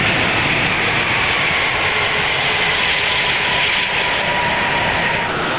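Airbus A380 landing, heard from the cockpit: a loud, steady rush and rumble of airflow and runway roll. A faint tone slides slowly lower as the engines wind back toward idle after the thrust levers are retarded, and the sound changes near the end.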